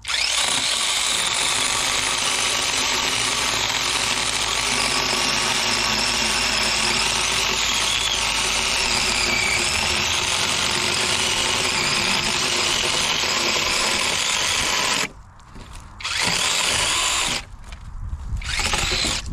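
Seesii 21-volt cordless electric chainsaw running under load as it cuts through a piece of hard oak for about fifteen seconds. It stops, then runs again in two short bursts near the end.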